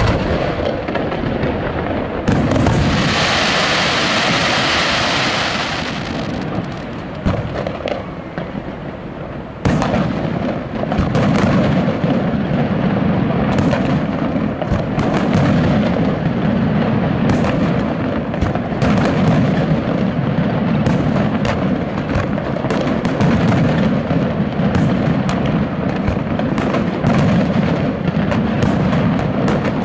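Aerial fireworks shells bursting one after another over a continuous low rumble. About three seconds in comes a high hiss lasting some three seconds; near ten seconds a loud bang starts a long run of rapid sharp reports.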